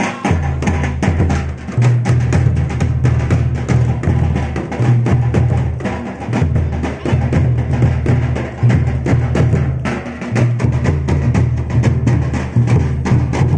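Dance music driven by fast drumming: rapid sharp strikes over a heavy, deep booming bass.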